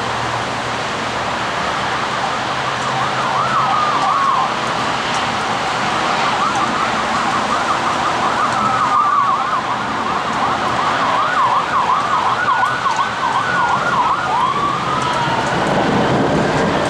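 Emergency vehicle siren wailing in slow sweeps, switching to a fast yelp for a few seconds and then back to a wail. Underneath is a steady hiss of heavy rain and traffic.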